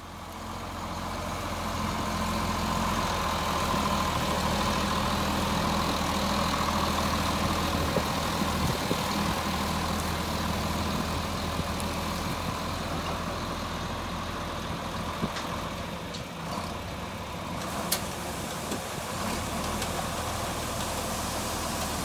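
John Deere 4640 tractor's six-cylinder diesel engine running steadily at a constant speed.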